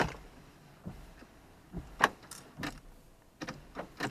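About eight irregular sharp clicks and light knocks from handling inside a Toyota Supra Mk4 as the ignition key is turned; no engine is running.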